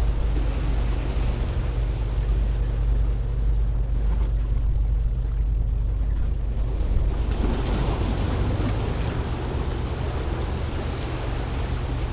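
Wind buffeting the microphone over the wash of sea waves breaking on the rocks of a breakwater, with the surf hiss swelling louder about seven seconds in.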